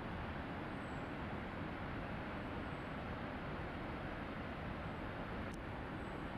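Steady, even roar of a high waterfall's falling water. A single sharp click about five and a half seconds in.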